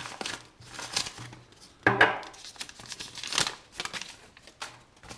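Parcel packaging being crinkled and torn open by hand, in irregular rustles with louder tears about one, two and three and a half seconds in.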